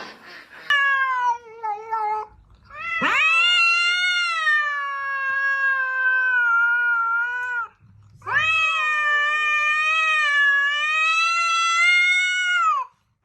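A cat yowling: a short call, then two long drawn-out calls of about five seconds each, each sliding up at the start and then held.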